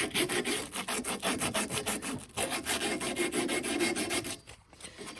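Copper pipe end being sanded by hand with sandpaper, quick back-and-forth rubbing strokes at about five a second to clean the surface before soldering. The strokes pause briefly a little over two seconds in, then stop shortly before the end.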